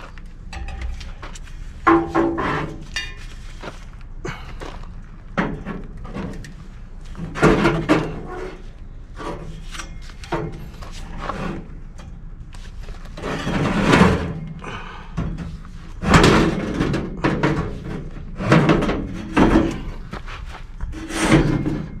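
Irregular metal knocks and clanks, some briefly ringing, as a squirrel-cage blower wheel on its shaft is handled and fitted into the sheet-metal blower housing.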